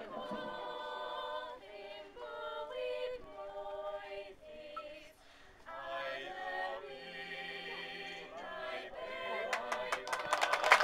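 Small mixed group of young voices singing unaccompanied in Welsh, holding chords in harmony, with a short break about five seconds in. Clapping starts near the end.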